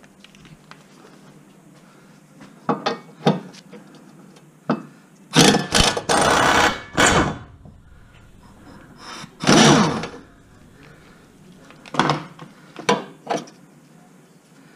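Pneumatic impact wrench hammering a 20 mm bolt loose, in one long burst and then a shorter one a few seconds later, with sharp clicks and knocks of metal being handled before and after.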